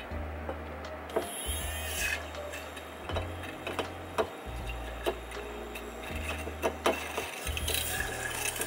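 Handheld electric milk frother whirring as it mixes liquid in a glass mason jar, with frequent clicks and taps of the whisk and jar.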